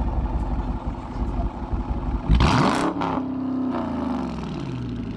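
Dodge Charger's engine idling at the exhaust, then revved once about two seconds in and dropping back toward idle. The car is running again after a no-start fault traced to a stray spliced wire.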